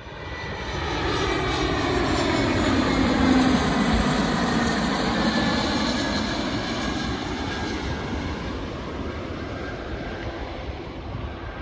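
Delta Boeing 717-200 passing low overhead on final approach, its two Rolls-Royce BR715 turbofans whining and rushing. The sound swells to a peak about three seconds in, its engine tones sliding down in pitch as the jet goes by, then slowly fades as it heads toward the runway.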